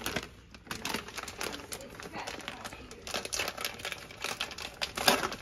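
Crinkly packaging being handled by hand: irregular crackling, loudest about five seconds in.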